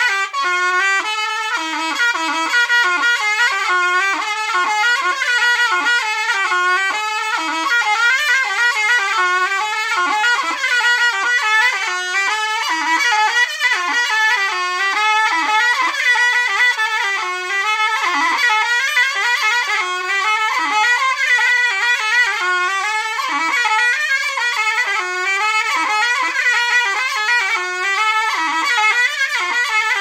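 Zurna, the Turkish double-reed wooden shawm, played solo: a fast, heavily ornamented folk melody whose pitch moves up and down without pause.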